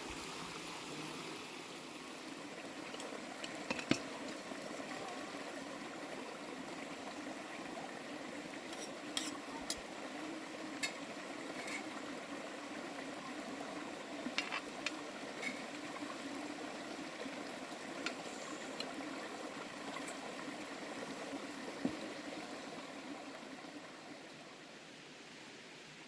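Food cooking in a pot over the fire, a steady bubbling and sizzling, with a few light clicks and taps of a utensil against the pot scattered through it. The sound eases off a little near the end.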